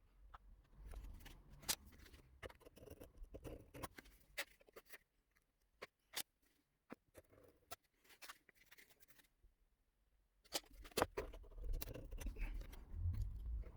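Scrapers spreading and smoothing two-part epoxy resin over a magnet: irregular scrapes, clicks and taps of the blades in two busy spells with a quiet gap in between.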